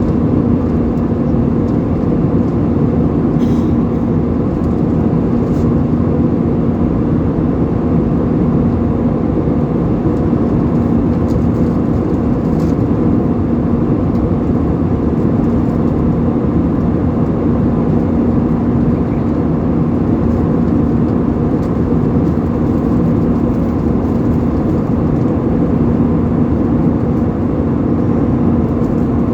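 Airbus A320 passenger-cabin noise in flight after takeoff: a steady roar of engines and airflow with a constant low hum.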